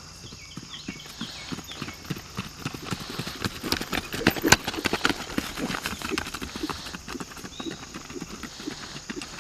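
Hoofbeats of a ridden horse moving briskly on a grass-and-dirt track, a quick, even run of strikes. They grow loud as the horse passes close by about four seconds in, then fall back as it moves away.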